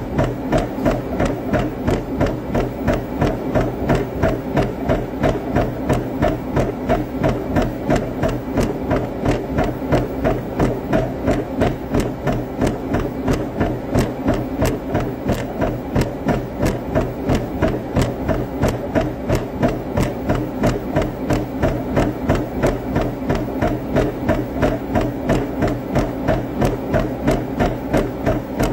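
Running footfalls thudding on a treadmill in a quick, even rhythm of about three a second, over the steady hum of the treadmill's motor and belt.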